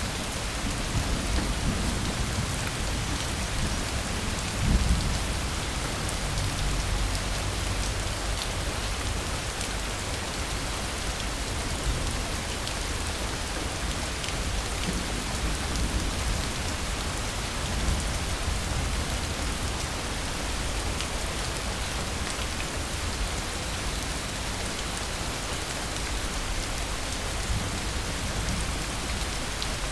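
Steady, dense rain falling and pattering on surfaces, with a low rumble of distant thunder in the first several seconds, strongest about five seconds in.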